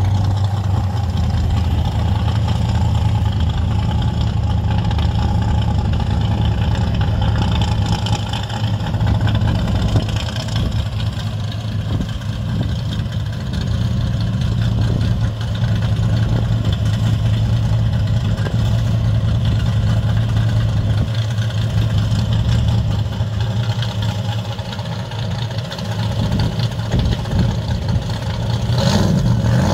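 Supercharged engine of a flame-painted Chevy Nova idling steadily with a deep, low rumble.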